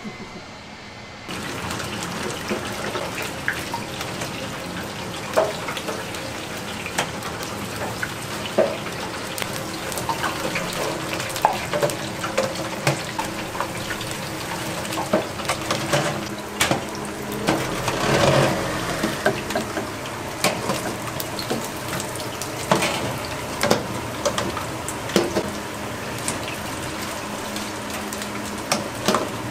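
Steady rush of running water that starts suddenly about a second in, with frequent knocks and clicks on top and a louder swell a little past the middle.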